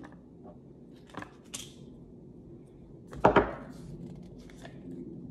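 Small cosmetic packaging handled and set down on a tabletop: a few light taps and rustles, then a sharp double knock a little past three seconds in.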